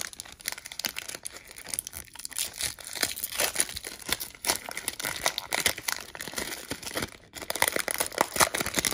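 1992-93 SkyBox basketball trading cards handled in a quick run of papery rustling, flicking and crinkling as cards and pack wrapper are shuffled through the hands.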